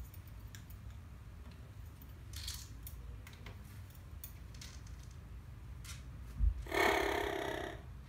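Amazon parrot climbing a chair leg, with light clicks of beak and claws on the pole and a thump about six and a half seconds in. It then gives one loud, baby-like crying call about a second long that fades out near the end.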